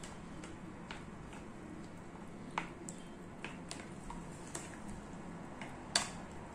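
A spoon stirring cubed chicken through thick batter in a glass bowl: irregular light clicks and taps as it knocks against the bowl, the sharpest about two and a half seconds in and near the end.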